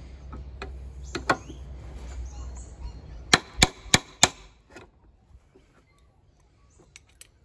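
Four quick hammer blows, about a third of a second apart, on an adjustable spanner gripping a lawnmower's bent front wheel bracket, bending the bracket straight to correct the wheel's toe-in. A few lighter metal knocks from the spanner come before them.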